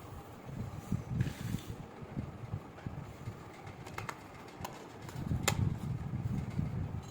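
Toy pieces being handled during unboxing: an uneven low rumble with a short rustle about a second in and a few sharp clicks from about four seconds on, the loudest about five and a half seconds in.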